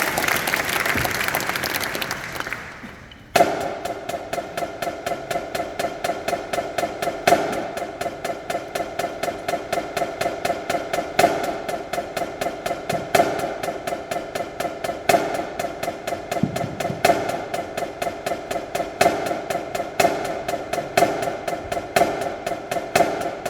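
Crowd applause dies away, then about three seconds in a marching drumline starts playing: a fast, steady run of crisp drum strokes with a louder accent every couple of seconds.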